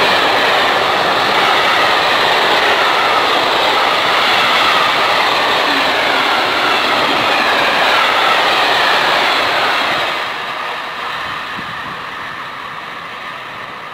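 Freight train drawn by an electric locomotive rolling past close by: a loud, steady rush of wagon wheels on the rails. It falls off after about ten seconds as the last wagons pass and the train pulls away.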